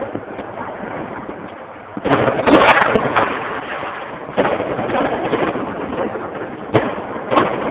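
New Year's fireworks going off: a run of bangs and crackles over a constant rushing noise, with a loud burst of crackling about two seconds in and sharp single cracks near the end.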